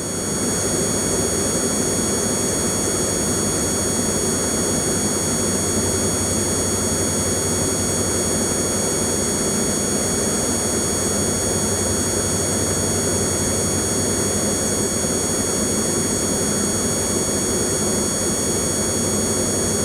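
Piston engine and propeller of a Diamond light aircraft droning steadily in cruise, heard inside the cabin, with a steady high-pitched whine on top.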